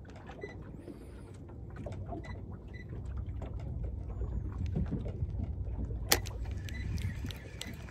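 Steady low rumble on board a small fishing boat, with scattered light clicks and one sharp knock about six seconds in.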